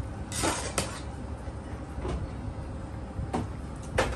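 Metal serving spoon scraping and clinking against an aluminium cooking pot and stainless steel plates as rice is dished out: a few short scrapes and knocks, the first about half a second in and the last near the end, over a steady low rumble.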